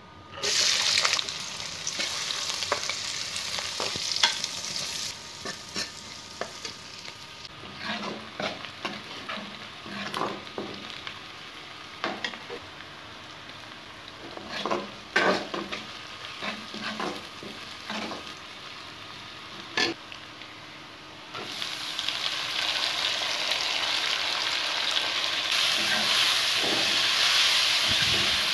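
Chopped onions sizzling in hot oil in a metal kadai, starting about a second in, with a steel ladle scraping and clinking against the pan as they are stirred. About 21 seconds in, the sizzle turns much louder and denser as chopped tomatoes go into the pan and are stirred.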